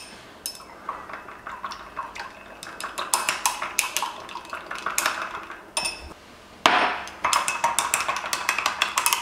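A chopstick stirring coffee and sweetened condensed milk in a glass tumbler, clinking rapidly against the glass. There is a short pause about six seconds in, then a louder run of clinking.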